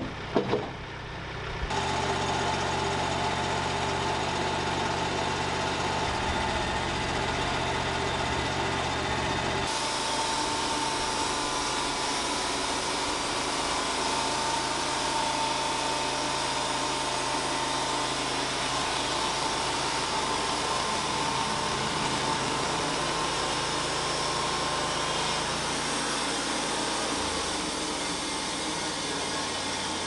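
Machinery running steadily: a couple of knocks in the first second, then a tractor's engine, and, after an abrupt change about ten seconds in, the Wood-Mizer band sawmill running with a steady whine.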